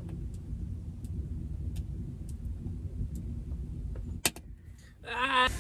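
Campfire crackling: sparse sharp pops and one louder snap about four seconds in, over a low steady rumble.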